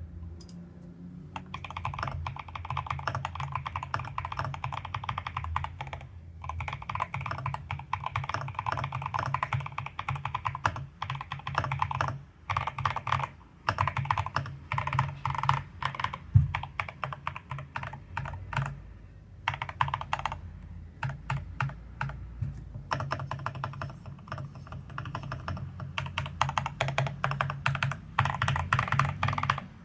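Mechanical keyboard typing test: Akko Crystal Silver U1 linear switches clacking in fast runs of keystrokes on an Akko 5075 board that is tape-modded with dampening underneath to dull the sound. The typing stops briefly a few times between runs.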